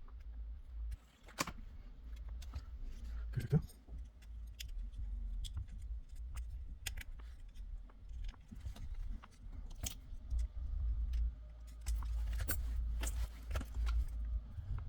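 Scattered small clicks and metallic taps of tools and a component being handled as a replacement part is fitted onto a TV power board, over a low steady hum.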